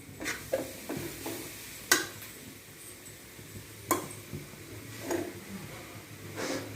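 Spoon stirring and scraping a thick chana dal and jaggery paste in a kadai, with irregular sharp knocks of the spoon against the pan. The paste is being kept moving so it thickens without sticking to the bottom.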